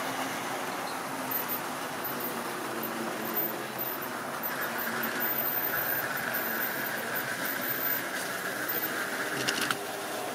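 Tri-ang model train running along the track: a steady rumble and rattle of the coaches' and wagons' wheels on the rails. A high squeal joins in about halfway through and cuts off shortly before the end.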